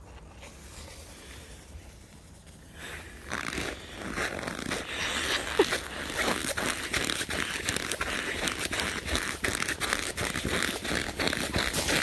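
Footsteps crunching in packed snow, starting about three seconds in, with a short squeak about five and a half seconds in.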